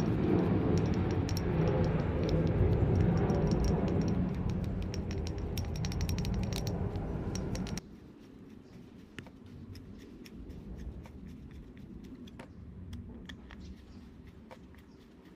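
A two-stroke scooter engine running steadily, which cuts off abruptly about eight seconds in. It is followed by faint, scattered clicks and rattles of parts being handled.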